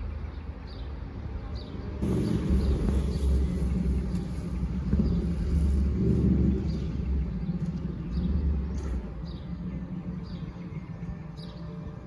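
Rorschach-Heiden-Bergbahn train pulling out of the station: a low rumble of its drive and wheels that swells about two seconds in and eases off after nine seconds as it moves away. A high hiss sounds for the first few seconds of the rumble, and faint chirps repeat throughout.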